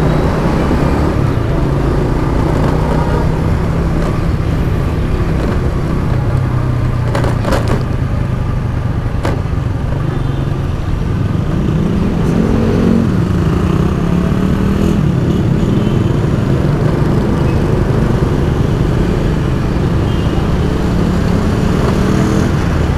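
Honda Wave underbone motorcycle's small single-cylinder four-stroke engine running while riding in city traffic, heard close from the bike, rising in pitch about twelve seconds in as it picks up speed. A couple of sharp clicks come in the middle.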